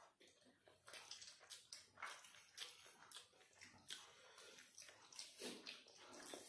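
Faint eating sounds of chicken and rice eaten by hand: irregular wet chewing, lip smacks and small clicks of the mouth, now and then a few a second.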